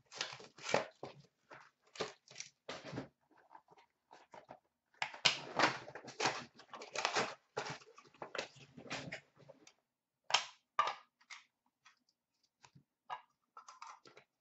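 Plastic wrapping and cardboard packaging crinkling and rustling as a hockey trading-card box is torn open and unpacked. The crinkling comes in irregular bursts, busiest in the first few seconds and again in the middle, then thins to a few scattered clicks.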